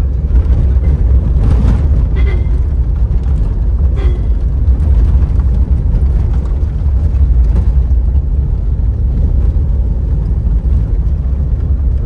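Vehicle driving along a road: a steady low rumble of engine and road noise, with a few faint knocks in the first few seconds.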